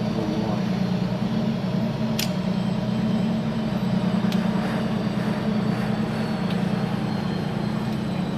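A machine running with a steady low hum, with a single sharp click about two seconds in.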